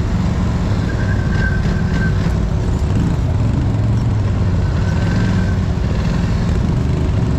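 Polaris Scrambler XP 1000 ATV's twin-cylinder engine running steadily at low speed off-road, heard from the rider's seat.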